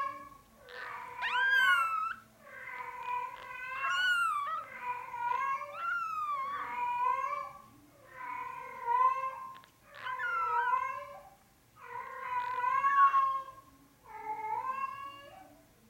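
Newborn Norwegian Forest Cat kitten, five days old, crying over and over: about ten high, wavering mews, each about a second long, one every second and a half or so.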